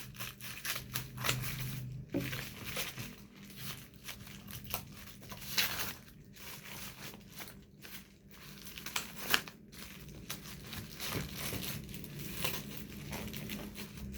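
Packaging crinkling and tearing as a package is unwrapped by hand, in many short, irregular rustles and rips.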